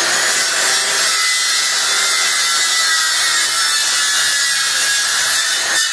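Electric woodworking power tool running continuously at the bench, with a steady high whine that slowly drops in pitch; it cuts out for an instant near the end.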